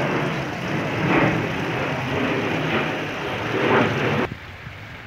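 Jet airliner passing overhead: a steady rumbling roar with a few swells, cutting off suddenly about four seconds in.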